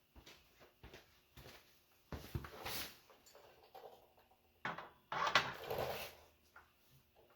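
Knocks, clunks and scraping of suspension parts and tools being handled and moved to the press, with two longer clattering stretches about two seconds in and again around five seconds.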